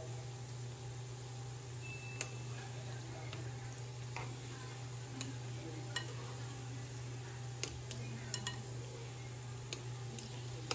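Doughnuts frying in shallow oil in a pan, a soft steady sizzle, with metal chopsticks clicking against the pan about nine times as the doughnuts are turned, the loudest click near the end. A steady low hum runs underneath.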